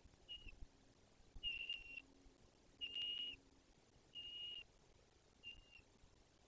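Bald eagle calling from the nest: five faint, high, thin whistled notes, each about half a second long and of steady pitch, evenly spaced about one and a quarter seconds apart.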